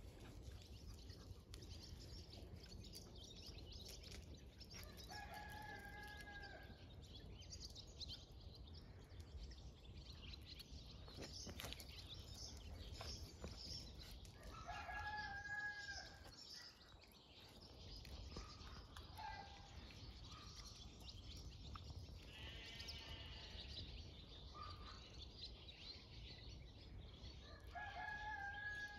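A rooster crowing three times, faint, about ten seconds apart, with shorter calls in between.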